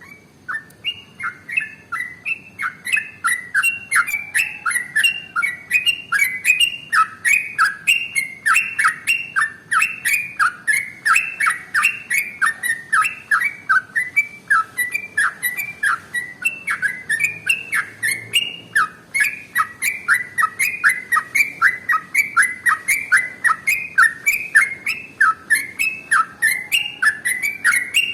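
Yellow-vented bulbul (trucukan) singing a long, unbroken run of rapid chirping notes, about four a second, in the continuous "ropel" style of a bird in full song.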